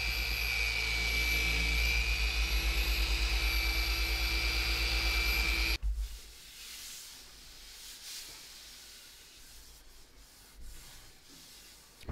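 A 6-inch long-throw random orbit (DA) polisher with a foam pad running on a sealed concrete countertop: a steady motor whine with a rapid regular throb, switched off suddenly about six seconds in. After that, faint rubbing of a hand over the polished surface.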